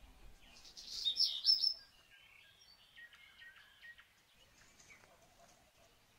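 Birds chirping: a burst of high, quick chirps about a second in, then fainter scattered chirps.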